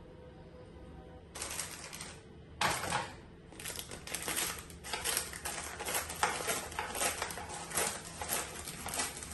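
A sheet of paper crinkling and rustling as it is handled and folded: a couple of crackly bursts, then a dense run of quick, irregular crackles.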